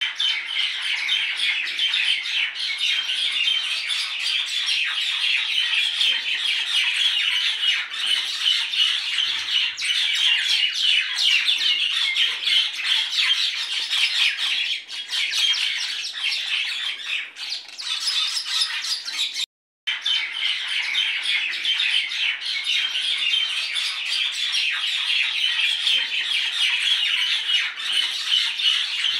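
A flock of birds chattering and squawking densely and without pause. The sound cuts out completely for a moment about two-thirds of the way through, then resumes.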